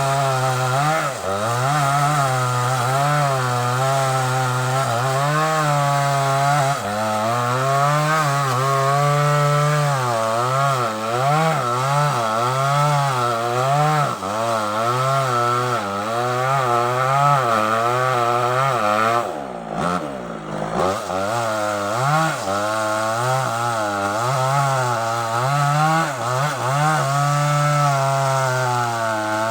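Small chainsaw running at high speed while cutting sengon wood, its engine pitch rising and falling roughly once a second as the chain loads in the cut. About twenty seconds in, the engine briefly drops to a lower speed, then revs back up.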